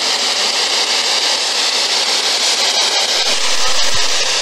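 Spirit box sweeping through radio stations: a loud, steady hiss of radio static. Near the end there is a brief change in the static that the ghost hunter takes for a voice saying "hello".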